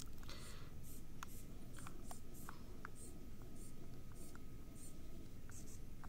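Small hobby servo motors giving short, high whirs at irregular intervals as a gamepad joystick drives them. Scattered light ticks sound among the whirs, over a faint steady high tone.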